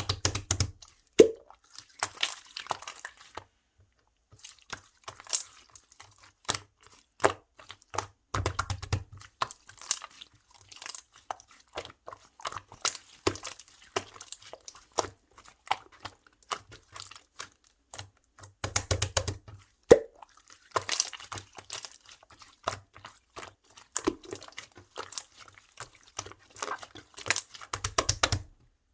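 Clear slime worked by hand, giving a steady run of sticky clicks and small bubble pops, with heavier squishing presses about every nine seconds.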